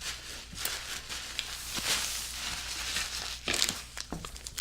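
A plastic candy-bar wrapper crinkling as it is handled, with small irregular crackles.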